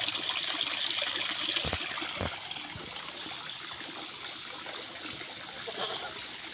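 Water from a small garden fountain pouring from its spouts and trickling into a pool, growing gradually fainter.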